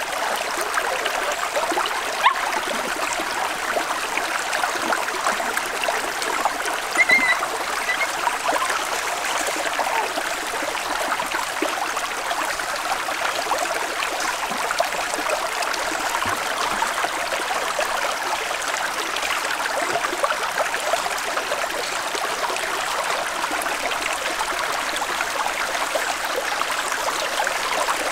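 Shallow stream running over rocks, a steady trickling and burbling. A brief high chirp comes about seven seconds in.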